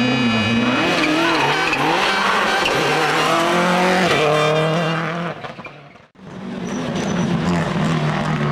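World Rally Car turbocharged four-cylinder engines revving hard, the pitch rising and falling through gear changes. The sound dies away briefly about six seconds in, then comes back with the engine again.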